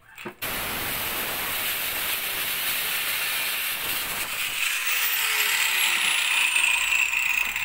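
Electric angle grinder switched on about half a second in and running steadily against blue PVC pipe, a loud hissing noise with a steady high whine that grows stronger near the end.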